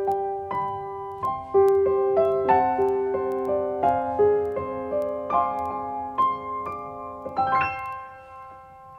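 Background piano music: a slow melody of single notes, each struck and dying away, with a quick roll of notes about seven and a half seconds in before it fades out near the end.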